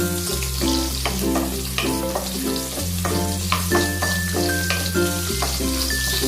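Background music with held bass notes and a repeating chord pattern, over the sizzle of food frying in a pan for chicken tinola.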